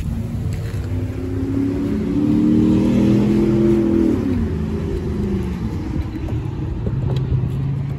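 A car engine accelerating past, its pitch climbing for a couple of seconds and then dropping away, over a steady low rumble.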